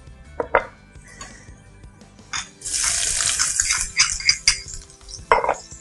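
Diced onion tipped from a small bowl into a hot pan of olive oil, sizzling loudly for about a second from just before the middle, among clinks of the bowl and spoon against the pans.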